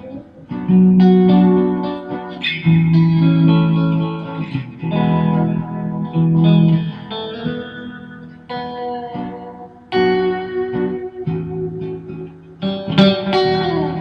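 Fender Stratocaster electric guitar being played: melodic phrases of picked notes, several held and left to ring, with a brighter, busier flurry of notes near the end.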